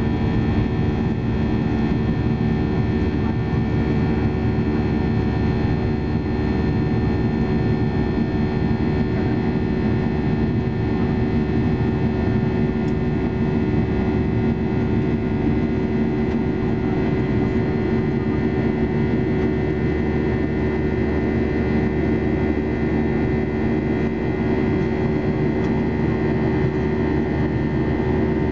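Cabin noise of a Boeing 737-800 climbing after takeoff, heard from a seat over the wing: its CFM56-7B jet engines and the airflow make a steady drone, several even tones over a low rumble.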